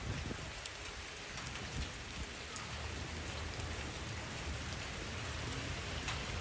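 Steady rain falling on a wet paved street and sidewalk: an even hiss with scattered small drop ticks.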